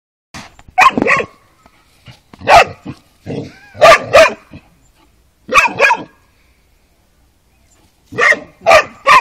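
Young Šarplaninac sheepdog barking at a tortoise in short volleys of one to three barks, with quiet pauses between them.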